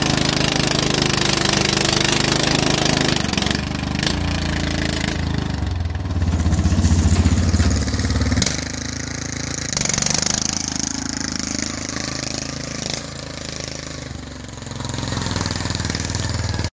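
Murray Select Mudder riding lawn tractor's engine running hard through a burnout and then while driving, the revs rising and falling. It is loudest about six to eight seconds in and drops off sharply just after.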